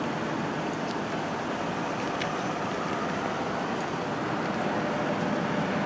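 Steady vehicle and road noise, an even hum and hiss with no distinct tone, broken by a few faint light clicks.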